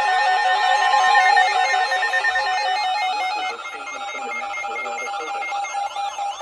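Background music with a plucked-string melody. Under it, a steady high alert tone from the weather radio's warning alarm stops about two and a half seconds in.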